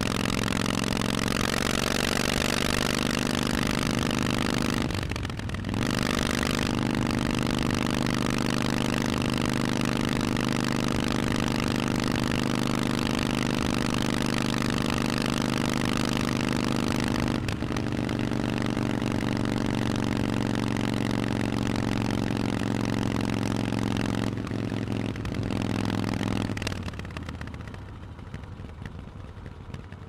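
Harley-Davidson Forty-Eight's 1200 cc V-twin through Vance & Hines exhaust pipes, running steadily under way. Its sound breaks briefly about five seconds in and again at about seventeen seconds. Near the end it drops off and quietens as the throttle comes off.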